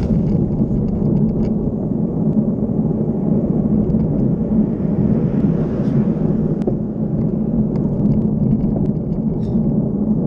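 Steady low rumble of wind and road vibration on a handlebar-mounted camera while cycling along a tarmac road, with scattered faint ticks.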